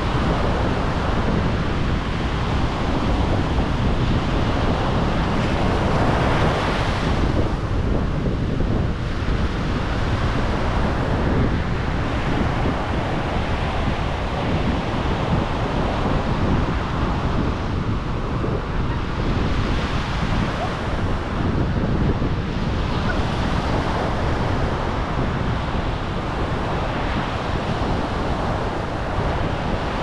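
Atlantic Ocean surf: waves breaking and washing in every few seconds, the biggest about six seconds in, over a steady low rumble of wind on the microphone.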